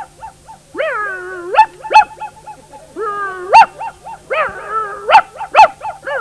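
Dog barking and whining: several sharp barks mixed with three drawn-out whining calls that dip and then rise in pitch.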